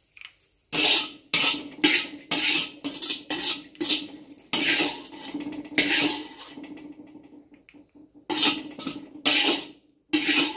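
A metal spatula scraping around the inside of a wok in short repeated strokes, scooping up the last fried noodles, with a quieter spell a little past the middle.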